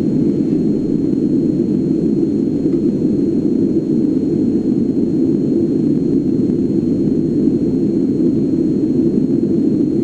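A steady low rumble from a documentary film's soundtrack, played over loudspeakers in a room.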